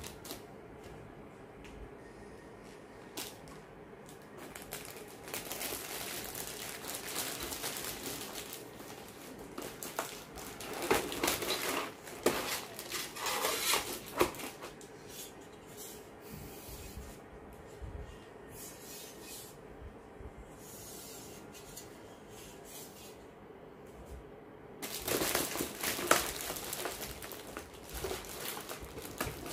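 Clear plastic parts bags crinkling as model kit parts are handled and shifted in a cardboard box. The sound comes in several stretches of a few seconds each, loudest about halfway through and again near the end.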